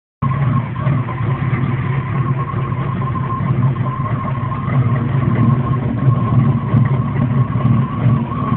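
A car engine held at high revs during a burnout, with a steady tyre squeal from the spinning rear wheel over the engine noise. The sound cuts in abruptly a moment after the start.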